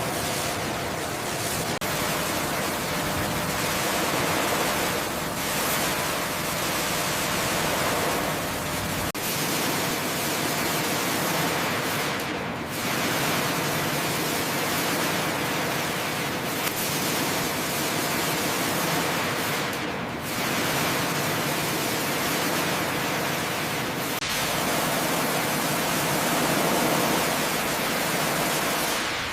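Steady, loud hiss of compressed-air spraying, made of several cut-together shots, the hiss shifting slightly at each cut.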